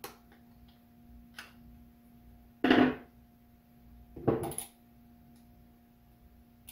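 Hand tools set down on a workbench: a screwdriver clatters onto it about two and a half seconds in, and a ratchet about a second and a half later, with a few small clicks of hub parts being handled between them.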